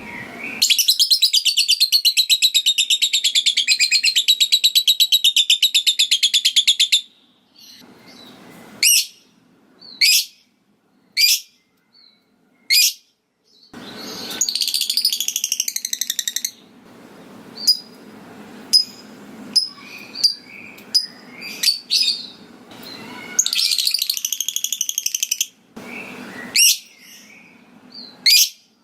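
Lovebird chattering: three long, very rapid high trills (the 'ngekek'), the first about six seconds long and the others shorter. Between the trills come single sharp chirps about once a second and short ticking calls (the 'ngetik').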